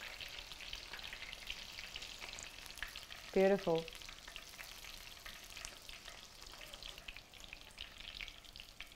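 Panko-coated king prawns on skewers deep-frying in hot rapeseed oil: a steady sizzle with fine crackling.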